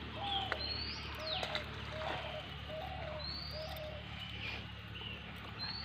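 Birds calling: high, short rising whistled notes repeat every second or two over a string of short low notes.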